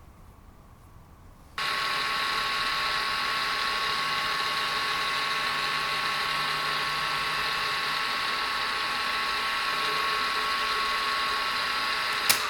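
Milling machine running while cutting a copper watch dial: a steady whine with several tones that starts suddenly about a second and a half in, with a sharp click near the end as it begins to die away.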